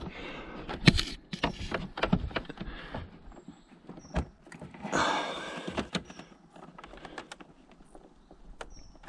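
Scattered clicks, knocks and creaks of plastic as fingers strain to twist a stubborn indicator bulb holder anticlockwise in a Honda VFR800's fairing. The holder is stuck fast, which the owner puts down to its dried-out rubber seal sticking to the plastic. There is a short rush of noise about five seconds in.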